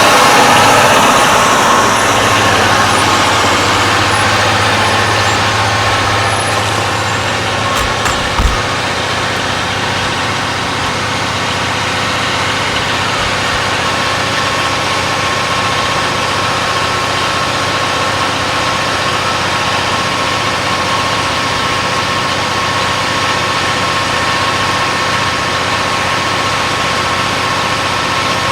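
KiHa 181 series diesel railcar engines running at a steady idle, loudest in the first couple of seconds and then settling to an even, continuous hum with a steady whine.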